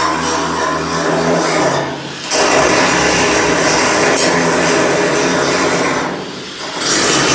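Handheld angle grinder grinding steel, a loud continuous abrasive grinding that dips briefly twice, about two seconds in and again near the end.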